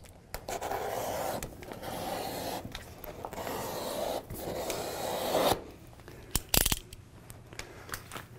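A utility knife slicing across a sheet of laminated printed vinyl in several long scraping strokes over about five seconds, followed by a few sharp clicks.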